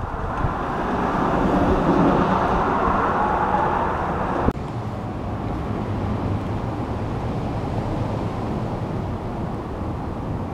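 Wind on the microphone: a steady rushing and rumbling noise that shifts abruptly about four and a half seconds in.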